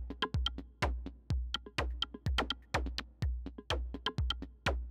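Electronic intro music: a drum-machine beat with a heavy kick about twice a second and quick ticking hits in between.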